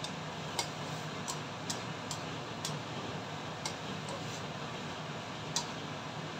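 Diced bacon frying in oil in a nonstick wok: a steady sizzle with sharp ticks and pops scattered irregularly through it, one louder about five and a half seconds in, as the pieces are stirred with a plastic spatula.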